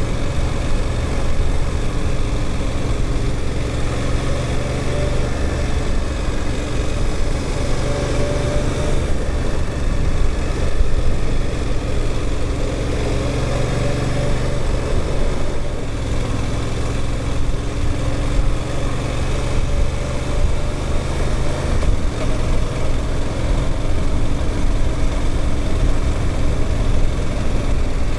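Suzuki GSX-8S's 776 cc parallel-twin engine running as the motorcycle is ridden during its break-in, the engine note rising and falling a little with the throttle. A steady rush of wind and road noise sits under it.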